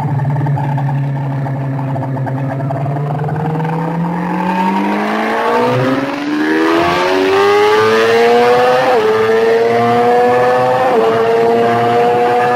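Sport motorcycle engine heard on board, held at low revs for the first few seconds, then accelerating hard with the revs climbing and two quick upshifts in the second half. Wind rush grows as speed builds.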